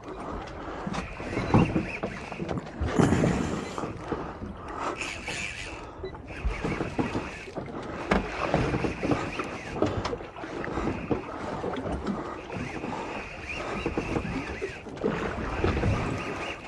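Small boat drifting on a swell: water slapping against the hull and wind on the microphone, with a few louder knocks along the way.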